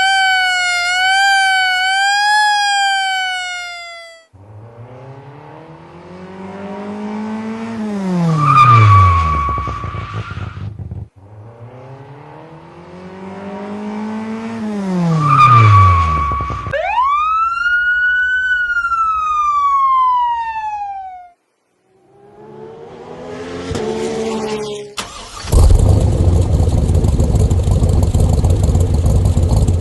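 A string of car sounds. First a wavering, horn- or siren-like tone for about four seconds. Then twice an engine revs up and falls away sharply, like a car speeding past, followed by a high tone that rises and then slides down. Near the end a loud engine runs steadily.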